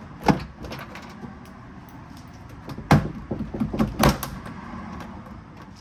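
Plastic retaining clips snapping loose as the plastic interior trim panel of a Lexus GX470's rear door is pried off. A sharp snap comes about a quarter second in, then a few lighter clicks. A cluster of clicks and knocks follows between about three and four seconds, with the two loudest snaps at its start and end.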